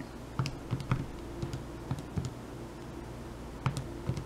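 Calculator buttons being pressed: an irregular run of short, sharp key clicks with a pause of about a second in the middle, as figures are keyed in to add up a total.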